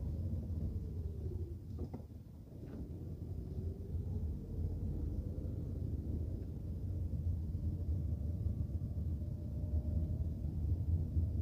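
Car driving, its engine and road noise making a steady low rumble that eases briefly about two seconds in.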